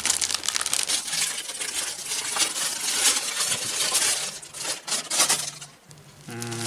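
Plastic packaging crinkling and rustling in the hands as a bubble-wrap mailer is torn open, with a run of sharp clicky crackles, easing off near the end.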